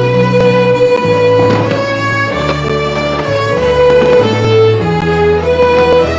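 Fiddle playing a traditional Scottish tune over held bass notes and chords that change about once a second.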